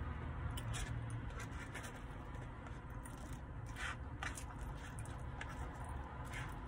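Plastic fork scraping and poking through chili cheese fries in a paper fry tray, with short clicks and chewing, loudest around the middle and near the end. A steady low hum runs underneath.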